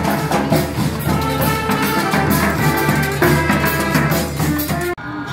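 Street carnival band playing live: sustained horn lines over a steady drum beat and clashing cymbals. The music breaks off abruptly near the end.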